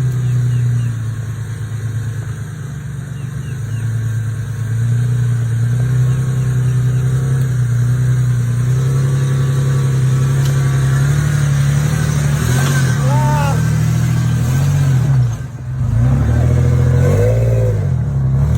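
A vehicle engine running steadily, revved up and down a few times in the second half, with voices faintly underneath.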